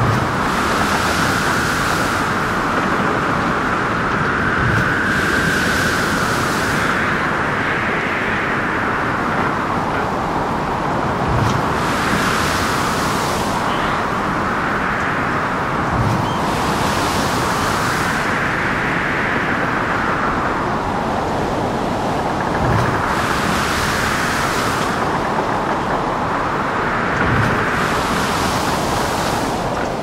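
Storm at sea around a boat: steady wind with a whistling tone that slowly rises and falls, waves breaking with a hiss of spray about every five seconds, and dull thumps of water striking the hull every few seconds.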